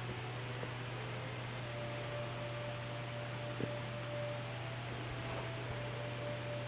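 Steady low electrical hum with a faint higher tone above it, and one soft tap about three and a half seconds in.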